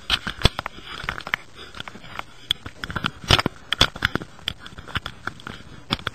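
Irregular sharp clicks and taps, several a second, over a faint hiss, the loudest about three seconds in: handling noise from something being worked close to the microphone.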